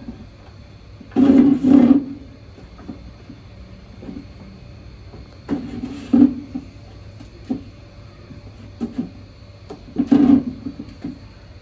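Kittens play-fighting around a plastic bin: three short, loud, noisy bursts, about a second in, around six seconds and near ten seconds, with a few small knocks between them.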